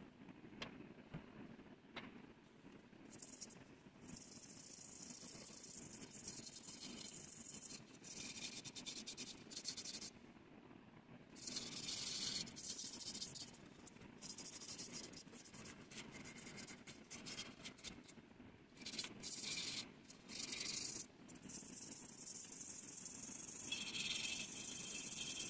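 A hand tool scraping and rubbing over the surface of a brass bowl: a hissy scrape in long strokes that break off and start again every few seconds, with a few light clicks in the first seconds.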